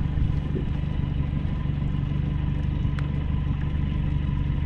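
A boat's outboard motor running steadily at low speed, a constant low hum, with a faint click about three seconds in.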